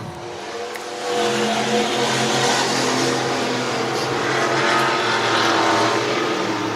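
Several stock cars' engines running on the track during hot laps, a steady engine drone that gets louder about a second in and then holds.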